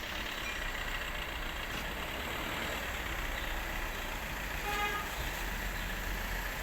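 Truck running on the road, a steady engine drone with road noise. A short pitched beep sounds about five seconds in.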